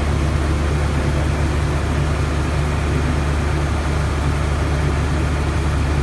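Heavy machinery running steadily: a loud, even low drone with a hiss above it that does not change.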